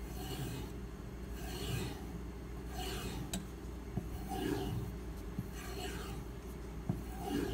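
Kitchen knife blade drawn along a paddle strop charged with 2-micron CBN emulsion: about six soft rasping strokes, roughly one every second and a half, as the edge is stropped to raise its final sharpness and polish. A couple of light clicks fall between strokes.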